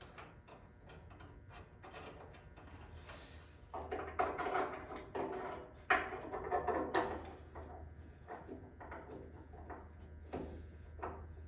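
Hand tools and metal suspension parts being handled: a run of clicks, knocks and scrapes, busiest and loudest from about 4 to 7 seconds in.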